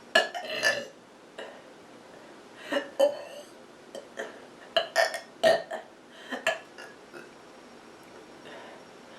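A person burping repeatedly from a stuffed, full stomach: a run of short burps, some in quick pairs, the last about six and a half seconds in.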